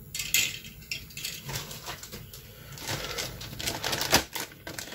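Clear plastic bag crinkling and hard plastic parts clicking as a bagged model-kit sprue is picked up and handled, in a quick run of small crackles and ticks.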